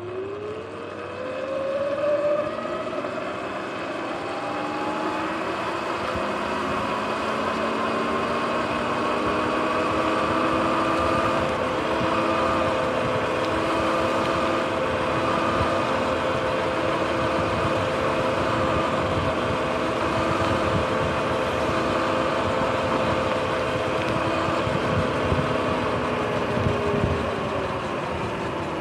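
Sur-Ron X electric dirt bike's motor whining, rising in pitch over the first couple of seconds as the bike speeds up, then holding steady and dipping slightly near the end. Under it runs a steady hiss of tyres on wet road.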